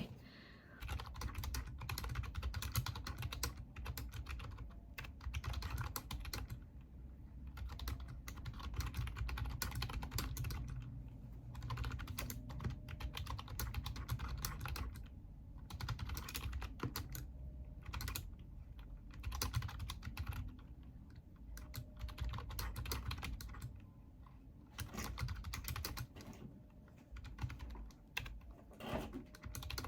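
Typing on a wireless keyboard: fast runs of key clicks with a few short pauses between them.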